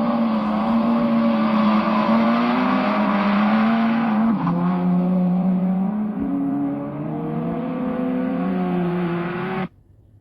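Racing car engine running at speed, its note shifting up and down in steps, with a sudden drop in pitch about four seconds in. It starts abruptly and cuts off shortly before the end.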